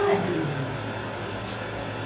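Steady low hum and hiss of background room noise, with a brief low voice trailing off at the start.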